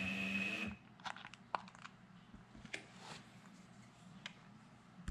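A short, steady tone lasting under a second at the start, then scattered light clicks and crinkling handling noises.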